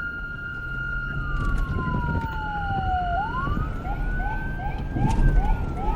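Police sirens. One siren wails slowly, falling over about three seconds and rising again, over a steady high tone that stops about halfway through. From about four seconds in, a second siren chirps quickly, two or three short rising sweeps a second, with a low rumble underneath.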